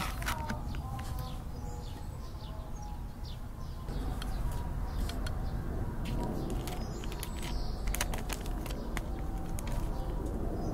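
Clear plastic cake film crinkling and crackling as it is handled and peeled off a slice of baked cheesecake, with birds chirping in the background.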